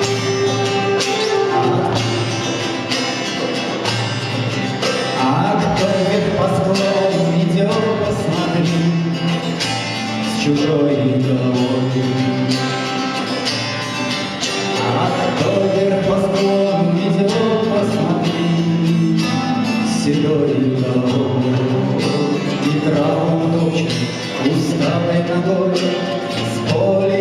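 A band plays a folk-rock song live, with voices singing over guitar-led backing.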